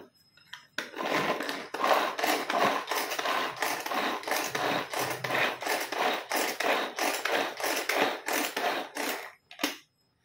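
A knife knocking and scraping inside a clear plastic vegetable-chopper bowl, tapping chopped onion out onto a steel plate. The rapid knocks come about three a second, starting about a second in and stopping shortly before the end.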